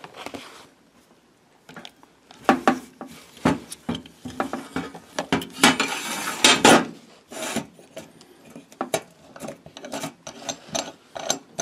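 Sink strainer parts being handled on a table: scattered clinks and knocks of metal and plastic pieces, with a longer rustle of packaging about six seconds in.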